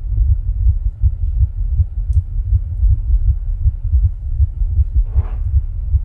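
A person's heart sounds: a steady run of low, rhythmic heartbeat thumps, recorded while the person rebreathes from a plastic bag.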